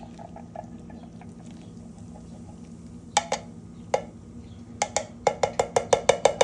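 Steel cans of whole kernel corn knocking, tapped to shake the last kernels into a crockpot. There are a few sharp knocks about three seconds in, then a fast, even run of taps near the end, over a low steady hum.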